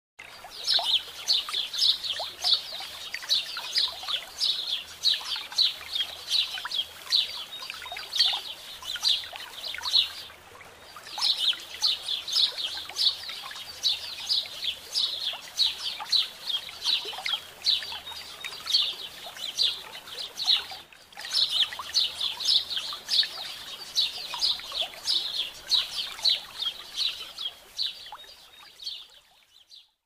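Many small birds chirping rapidly and continuously in a high-pitched chorus, with two brief breaks, about ten and twenty-one seconds in.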